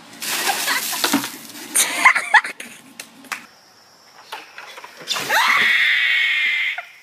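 A bucket of ice water dumped over a person, the water splashing down in the first second, followed by short yelps. Near the end, a second person gives one long scream under a pour of ice water.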